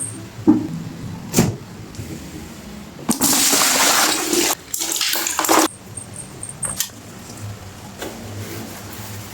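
Water gushing hard for about two and a half seconds, briefly interrupted, as when a running tap is used to rinse fridge parts in a sink. Two knocks come before it.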